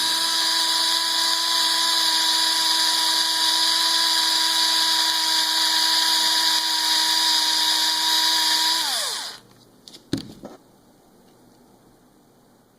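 Electric drill spinning up and running with a steady whine for about nine seconds, drilling the head off a stripped, rounded-out screw. It then winds down with a falling pitch, followed by a couple of light clicks.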